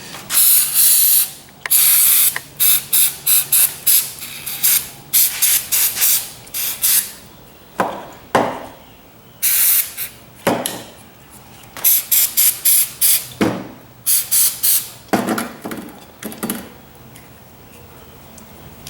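Aerosol carburetor cleaner sprayed in many short hissing bursts, some longer than others, into a lawnmower carburetor's jets to clean them.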